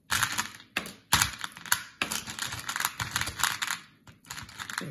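Mike and Ike candies clicking and rattling against a clear plastic bowl and each other as long-nailed fingers rummage through the pile and pick pieces out, a quick, uneven run of clicks that eases briefly about four seconds in.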